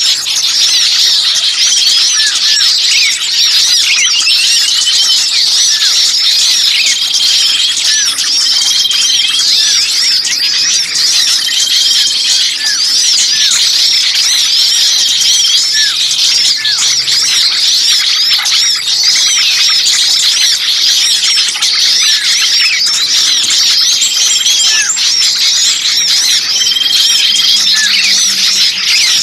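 A dense, loud chorus of many small songbirds calling at once: rapid high chirps and squeals, with a short level whistled note repeating every couple of seconds. It is the agitated, alarm-like racket of small birds played as a lure to draw in other birds.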